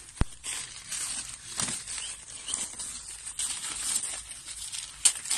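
Paper rustling and crinkling as harvested mangoes are pulled out of their paper fruit bags, with two sharp clicks, one just after the start and one near the end, louder than the rustling.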